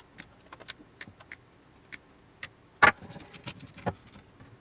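Small hand tools clicking and tapping against metal parts and wires while wiring is worked free from the back of a switch panel, with scattered sharp clicks and a louder snap about three seconds in.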